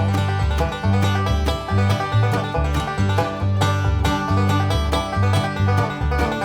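Background music: an upbeat bluegrass-style tune with plucked banjo and guitar over a steady bass line.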